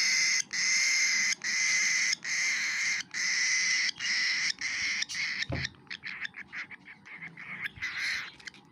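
Cockatiel chick's raspy food-begging calls, repeated about once a second. A low thump comes about five and a half seconds in, and after it the calls turn into faster, choppier short bursts.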